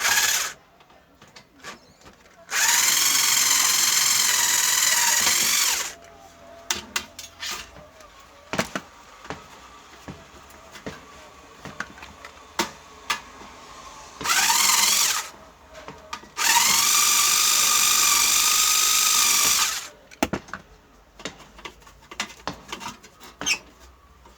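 Electric screwdriver running in bursts, two of them over three seconds long, each whining up to speed as it backs out screws from the TV's cover. Small clicks and taps of screws and parts come between the runs.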